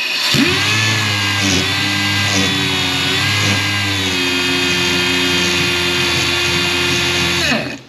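Valve seat grinder driver spinning a grinding stone as the stone is dressed to angle. A steady whine rises at the start, dips slightly in pitch a few times, then winds down near the end.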